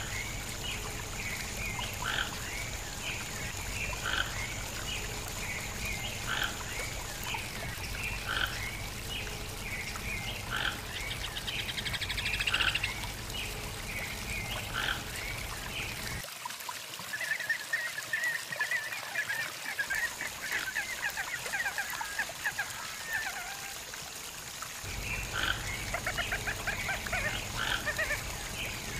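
Toco toucan calling: short calls repeated about once every second or so, with a stretch of faster, denser chirping in the middle.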